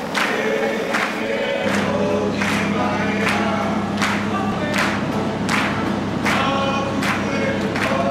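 Maori choral music: a group of voices singing over a regular beat that falls about every three-quarters of a second. A low steady note joins in a couple of seconds in.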